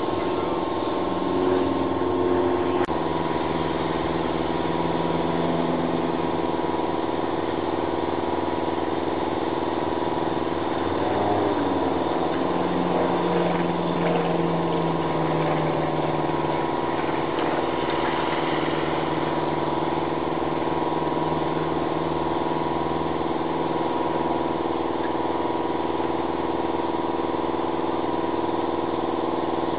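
Piston engine of a light aerobatic plane droning steadily overhead, its lower tone rising and falling as the plane manoeuvres.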